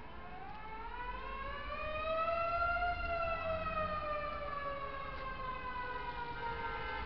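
Siren winding up and down: one long wail rising to a peak about three seconds in, then falling slowly.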